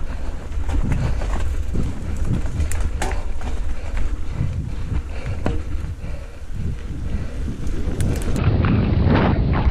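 Mountain bike riding fast down a dirt singletrack, heard from a camera on the bike: heavy wind buffeting on the microphone, with the tyres on dirt and the bike rattling and knocking irregularly over bumps.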